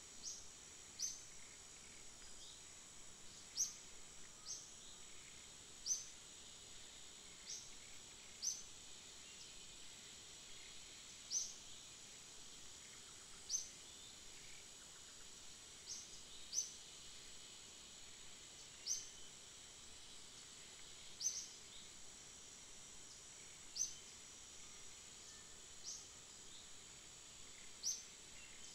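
Faint outdoor ambience: a steady high insect drone, with a bird repeating a short rising chirp every one to two seconds.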